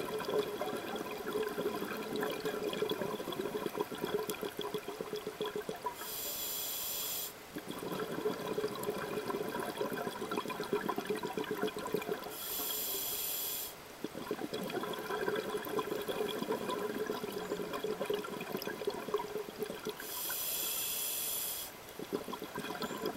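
A scuba diver breathing through a regulator underwater. There are three short hisses of inhalation roughly seven seconds apart, and between them the long crackling, bubbling rush of exhaled air.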